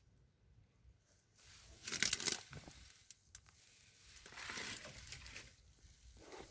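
Rustling and crinkling handling noise inside a truck cab, in two bursts: a loud one about two seconds in and a softer one near the end, with a single sharp click between them.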